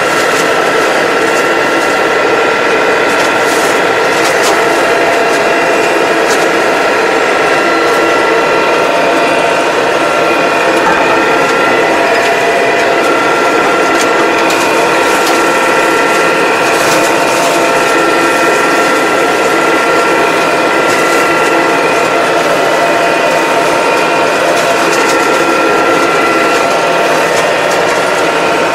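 Tractor engine and mower driveline running steadily under load as it cuts through brush, heard from inside the cab, with a steady gear whine and occasional sharp clicks.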